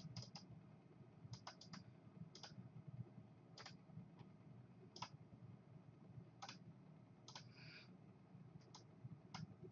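Faint clicks of a computer mouse: a dozen or so single clicks and quick double clicks, scattered about a second apart.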